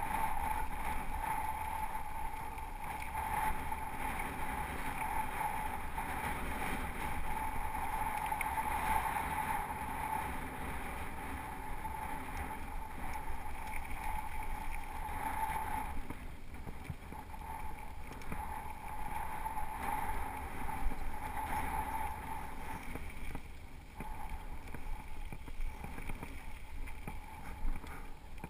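Ride noise of a mountain bike on gravel singletrack: steady rushing of wind on the camera and tyres rolling over loose gravel, with occasional knocks and rattles from the bike over rough ground.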